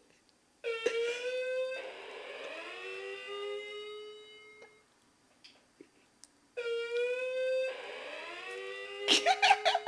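Wireless doorbell chime with a dying battery playing a slow, warped two-note ding-dong twice. Each time a higher note is followed by a lower one that sags in pitch and drags on for a few seconds before fading.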